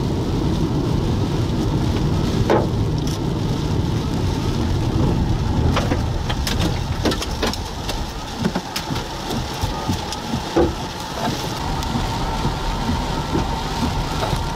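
Car driving through a storm, heard from inside the cabin: a steady low road and engine rumble, with rain and scattered sharp ticks of hailstones striking the car, the loudest about two and a half and ten and a half seconds in.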